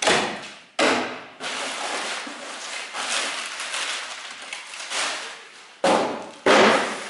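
Crumpled brown kraft packing paper rustling and crackling as it is pulled out of a cardboard shipping box. There are sharp knocks near the start and near the end, where the emptied cardboard box is tossed aside.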